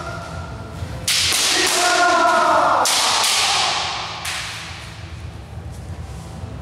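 Kendo sparring: sharp cracks of bamboo shinai striking and thuds of stamping feet on a wooden floor, with a falling kiai shout between about one and three seconds in.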